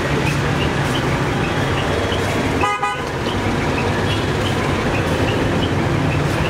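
Steady street traffic noise with one short vehicle horn toot about two and a half seconds in.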